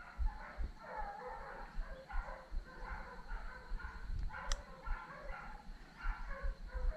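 Hunting dogs baying repeatedly in the brush as they trail a wild boar. Low thumps sound on the microphone, and there is one sharp click about four and a half seconds in.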